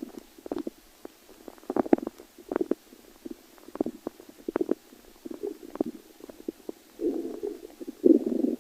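Stomach growling: irregular short gurgles and pops, turning into longer rumbles about seven seconds in.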